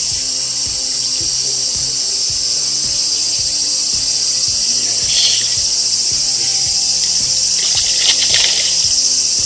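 Background music with a steady beat over a constant high hiss. Near the end comes a brief splashing as a hooked bass thrashes at the surface.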